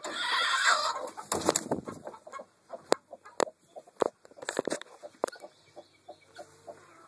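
Chickens clucking in short calls, with rustling and several sharp knocks over the first few seconds.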